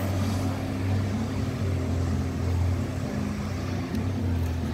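Steady low drone of vehicle engine noise, holding an even pitch.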